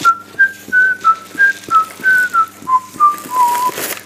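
A person whistling a tune: about a dozen short, clear notes stepping up and down, ending on a slightly longer, lower note.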